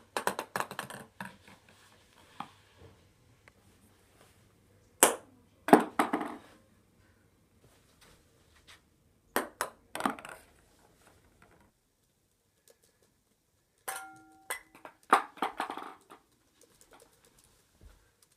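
Ping pong balls bouncing and landing in plastic wastepaper bins: several separate bursts of light, quick taps, starting with a rattling run of bounces, and a brief ringing tone about fourteen seconds in.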